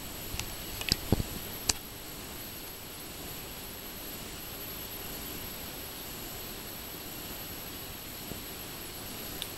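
Steady hiss with a faint, thin high-pitched whine. A few sharp clicks and a low knock come in the first two seconds.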